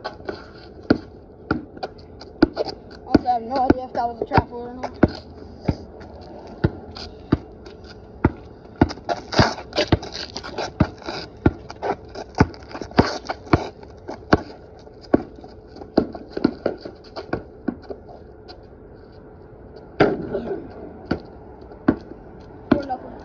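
Basketball being dribbled on a concrete driveway: a long run of sharp bounces at an uneven pace, at times about two a second, with a short pause near the end.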